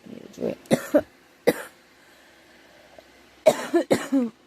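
A girl coughing: a few separate coughs in the first second and a half, then a quick run of about four coughs near the end. The coughs come from a scratchy, sore throat; she thinks she is getting a cold.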